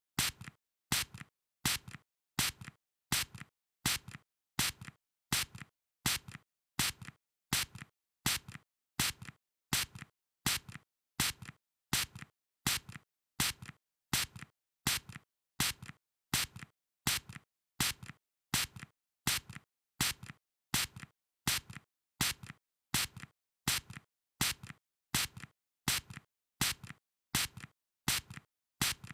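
A spray going off in short hissing bursts, each well under a second long, repeated at an even pace a little faster than one per second.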